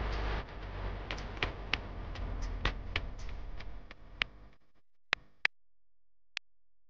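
Low background noise with scattered light clicks. It fades out about four and a half seconds in to near silence, broken by three sharp clicks.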